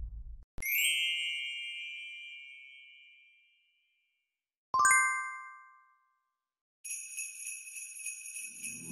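Two bright chime strikes: the first, about half a second in, rings out for about three seconds; the second, lower, near the middle, dies away within a second. Jingle bells then start shaking steadily about seven seconds in, and Christmas music joins near the end.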